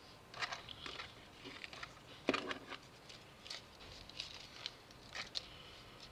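Light rustling and small irregular taps of thin plastic transfer backing film being handled and laid back over a model car door, with one sharper tap about two seconds in.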